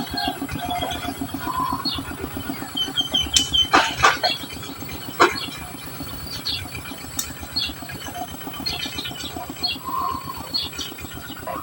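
Society finches chirping with short high calls, including a brief run of quick repeated notes about three seconds in. A few sharp knocks come around four and five seconds in, over a low, rapid pulsing.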